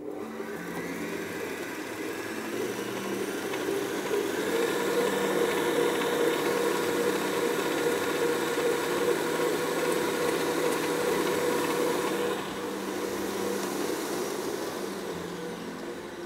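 Electric stand mixer running with its wire whisk attachment, beating cream cheese, cream and powdered sugar in a steel bowl: a steady motor whine with the whisk churning. It grows louder about four seconds in and drops back about twelve seconds in.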